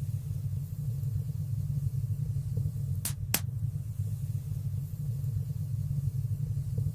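Wood fire burning in a stone fireplace: a steady low rumble of the flames, with two sharp crackling pops about three seconds in, a fraction of a second apart.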